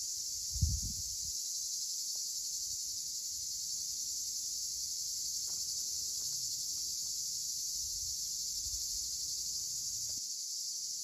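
Steady high-pitched chorus of insects. Wind gusts buffet the microphone, hardest just under a second in and again briefly later on.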